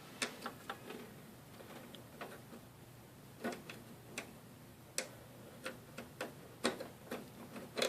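Irregular light clicks and taps of plastic cable connectors and cables being handled and fitted inside a desktop computer case.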